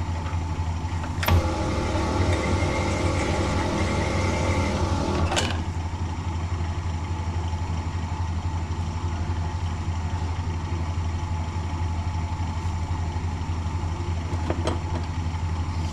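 A Sunnen honing machine's motor runs steadily with a low hum. About a second in there is a click, then for about four seconds the grinding of a rocker arm bush being worked over the spinning honing stone: the last light pass to open the bush to a snug fit on the rocker shaft. The honing noise stops about five seconds in, leaving the motor hum.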